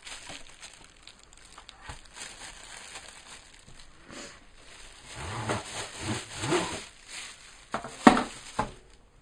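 Rustling and crinkling of packaging being handled, louder from about five seconds in, with a few sharp knocks near the end, the loudest about eight seconds in.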